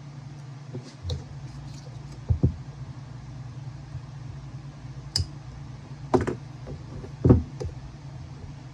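Battery cells and pack being handled while their wrapping is peeled off: a handful of sharp knocks and clicks, the loudest about seven seconds in, over a steady low hum.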